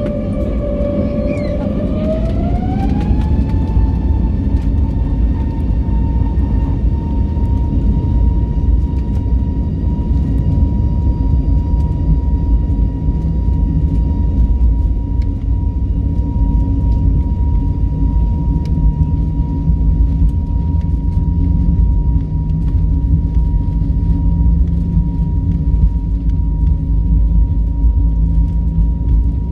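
Jet airliner engines heard from inside the cabin while taxiing: a steady low rumble, with the engine whine rising in pitch about two to three seconds in as thrust is added, then holding at one pitch.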